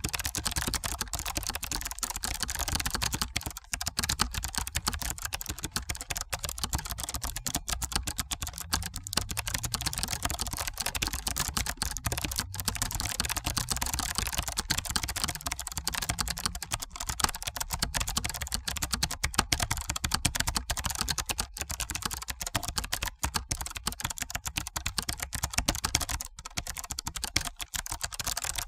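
Fast, continuous typing on a computer keyboard: a dense, uneven patter of key clicks with no pauses to speak of.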